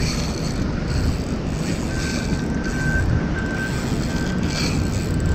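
Steady low rumbling noise of wind and handling on an action camera's microphone, with a faint thin high whine that comes and goes from about two seconds in.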